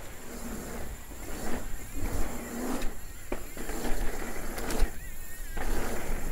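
Dawley Rallye steel hardtail mountain bike rolling fast, its tyres crossing a grated bridge deck and then a concrete jump line, with wind rushing on the microphone. The noise rises and falls in surges over the rollers.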